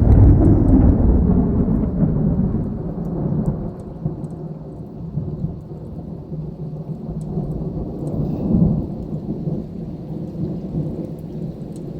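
Thunder rumbling: a loud peal at the start that fades over about four seconds, then a lower, steady rumble that swells briefly once more later on.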